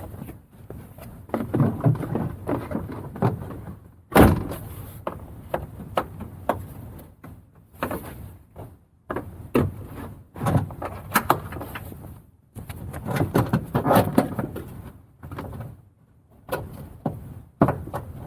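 Lexus SC400 rear bumper cover being put back on by hand: a run of knocks, clicks and rattles as it is pushed into place and its quick-release pins are snapped in, with one loud knock about four seconds in.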